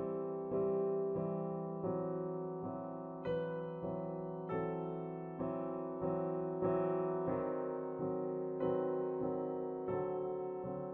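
Background music: a slow, gentle piano piece, notes and chords struck about once a second and left to fade.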